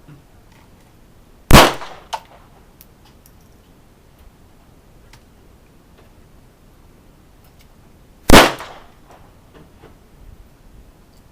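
Two loud gunshots on a shooting range, about seven seconds apart, each with a short echo, and a fainter shot just after the first.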